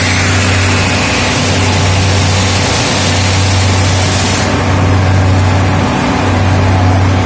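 An MKM UNICOMPACT 50/12 CNC machining centre's router spindle is cutting wood, a loud dense hiss over a steady low machine hum. The high cutting hiss drops away about four seconds in, leaving the hum.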